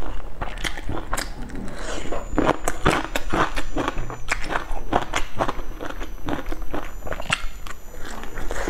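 Close-miked eating of crispy fried food: irregular sharp crunches and mouth clicks as it is bitten and chewed.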